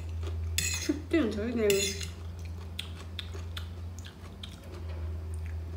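Eating noodles: a fork scrapes and clicks against the plate as chow mein is twirled, with chewing, and a short voiced mouth sound about a second in. A steady low hum runs underneath.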